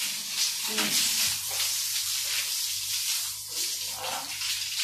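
Water from a garden hose running and splashing onto a wet floor, a steady hiss. A low steady hum sits underneath from about a second in.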